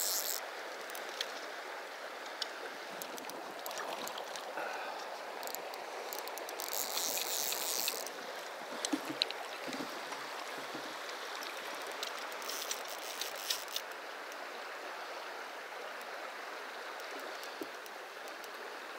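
Steady rush of flowing river water. Three short bursts of fast, high-pitched ticking come through it, about a second or so each, near the start, about seven seconds in and about thirteen seconds in.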